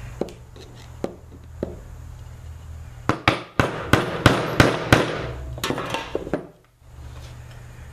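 Hammer tapping on a screwdriver to seat a master link on a mini bike's roller chain: three light taps, then a quick run of about eight sharper strikes about three seconds in, and a few weaker taps after it.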